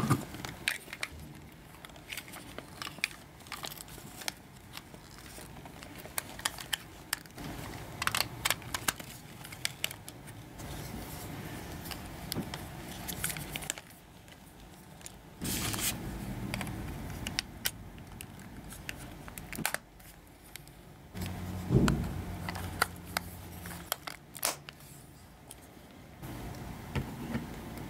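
Hard plastic Happy Meal toy puzzle pieces being handled and fitted together into a sphere: many irregular clicks, taps and scrapes of plastic on plastic as the parts snap into place.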